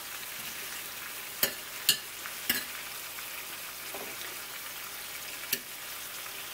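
Salmon pieces sizzling in a frying pan of red wine and Worcestershire sauce, a steady hiss. Over it, tongs click sharply four times as pieces are lifted out of the pan.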